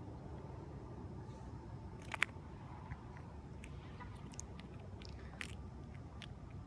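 Small, scattered clicks and handling noises close to the microphone as a panfish is unhooked and the hook rebaited by hand, with one sharper click about two seconds in, over a steady low background rumble.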